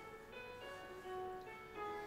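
A station departure melody playing over the platform speakers: a tune of held notes that step from pitch to pitch.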